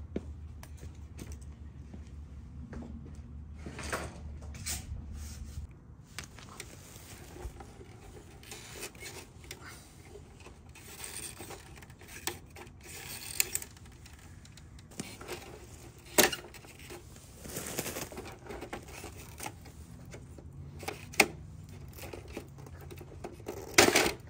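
Hard plastic clicks, cracks and knocks as the cut-open plastic housing of a Volvo XC90 LED headlight is handled and pried apart, with a few sharper snaps in the second half and the loudest near the end. A low hum underneath stops about six seconds in.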